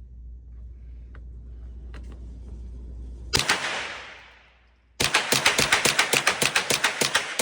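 Gunfire: one loud shot about three seconds in, its blast dying away over a second or so, then from about five seconds a very rapid, even string of shots, around nine or ten a second.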